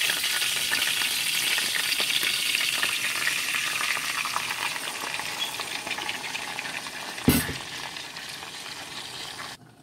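Blended chile and tomato salsa poured through a wire-mesh strainer into a pot of hot oil, sizzling and frying, the hiss slowly dying down. A single sharp knock about seven seconds in.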